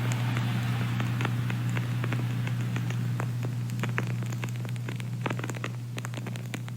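Dense, irregular small crackles and clicks over a steady low room-tone hum, the whole slowly fading.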